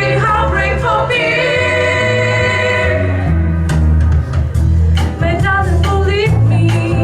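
Music with singing: sung vocal lines over a sustained bass, a long held chord in the first half, then sharp percussive hits.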